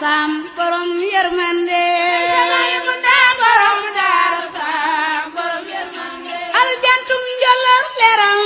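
Music: a solo voice singing long, wavering melismatic lines with vibrato.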